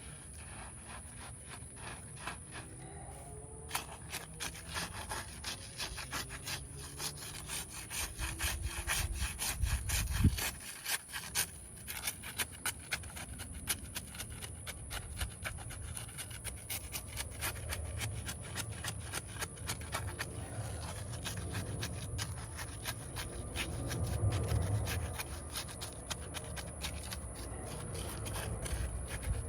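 Gritty, repeated scraping of dry-and-wet concrete mix being worked into a fence-post hole with a hand tool, with a dull thud about ten seconds in.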